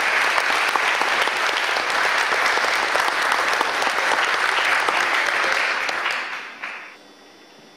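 Audience applauding, the clapping tailing off about six seconds in and stopping soon after.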